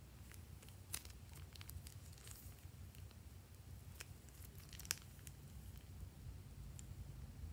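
Faint, sparse clicks and squelches of glossy slime being squeezed out of a plastic piping bag into a glass dish of slime, with sharper clicks about a second in and just before five seconds.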